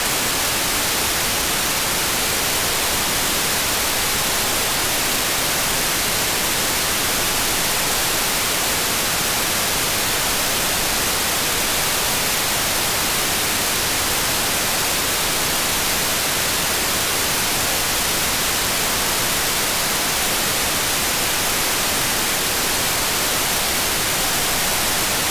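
Steady, loud static hiss from an AirSpy Mini software-defined radio receiving the ISS 145.800 MHz FM downlink with its squelch open. The hiss jumps in abruptly as the space station's transmission ends and runs evenly, the sign that no carrier is being received between transmissions.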